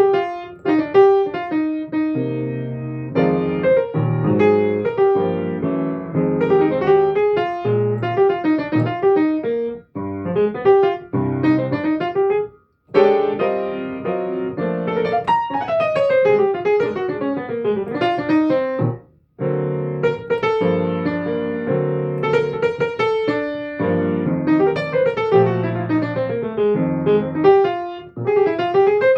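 Solo piano playing a flowing melody over chords, with quick runs up and down the keyboard, cut off abruptly for a moment a few times.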